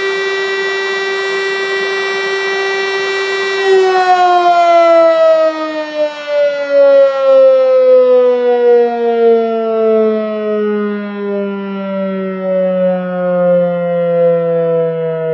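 Old, rusty DS977 civil-defence siren holding a steady tone, then cut off about four seconds in and winding down, its pitch falling slowly. The sound swells and fades as it runs down.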